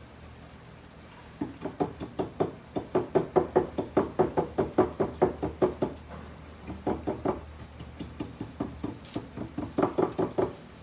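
Kitchen knife chopping on a wooden cutting board in rapid, even strokes, about five a second. After a short pause about six seconds in, a second, less regular run of chops follows.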